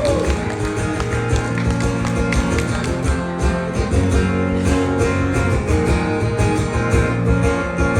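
Live band playing an instrumental passage of a rock song between vocal lines: strummed guitar over a steady beat and bass, with no singing.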